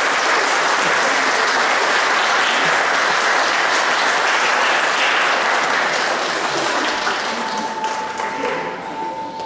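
Audience applauding steadily as an honoree is called up, the clapping dying away over the last couple of seconds. A steady held tone comes in near the end.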